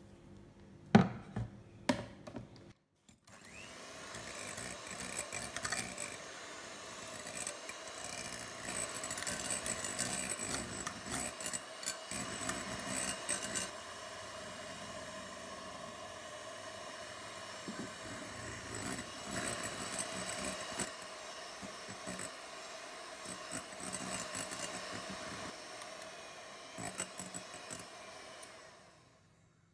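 Two sharp knocks, then an electric hand mixer starts about three seconds in and runs steadily, its twin beaters whipping egg whites and sugar in a glass bowl up to soft peaks; it stops near the end.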